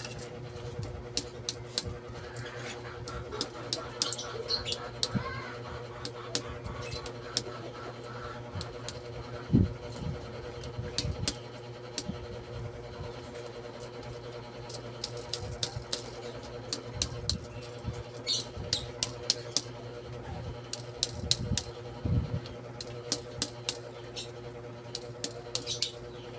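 Rubber mallet tapping the copper windings of an alternator stator down into the core slots: a run of sharp light taps, several a second and unevenly spaced, with a lull about halfway through. A steady low hum runs underneath.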